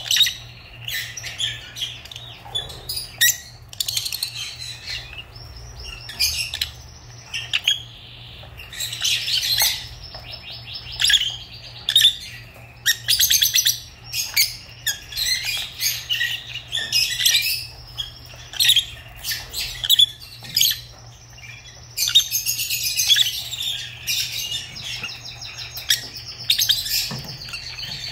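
Lovebirds chirping and chattering: a steady run of short, high-pitched calls, with bursts of denser, rapid chatter now and then.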